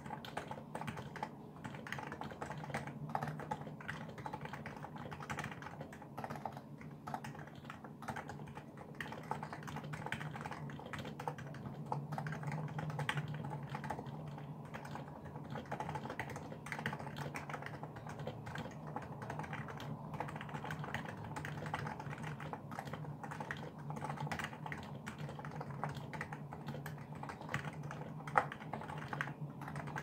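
Steady, fast typing on a Niz Plum Micro84 electro-capacitive keyboard with SA-profile keycaps and an OEM-profile spacebar: a dense stream of keystroke clacks, with one sharper stroke near the end.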